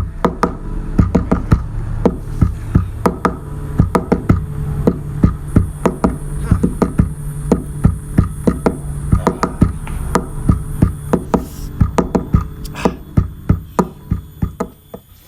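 Music: frequent sharp percussive hits over a steady low drone, with a hissing high layer in the middle stretch.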